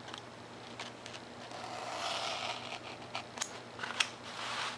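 Craft knife blade drawn along a plastic ruler, slicing through paper plans and 3 mm Depron foam with a scraping rasp. Near the end come a few sharp clicks and taps as the plastic ruler is lifted and moved, the loudest about four seconds in.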